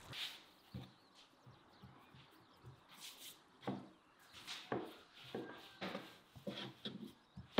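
A long thin wooden rolling pin rolling dough out on a floured wooden board: a run of short rubbing strokes, about two a second, starting about three and a half seconds in.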